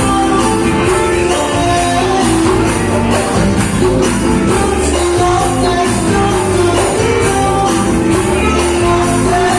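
Live dance band music with a singing voice over a steady quick beat, about three percussion strokes a second.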